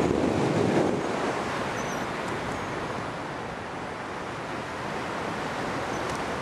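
Airflow rushing over the microphone of a tandem paraglider climbing on a winch tow: a steady noisy wind roar, a little louder for the first second.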